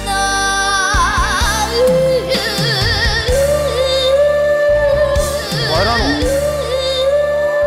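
A young girl sings a trot ballad live over band accompaniment, holding long notes with wide vibrato.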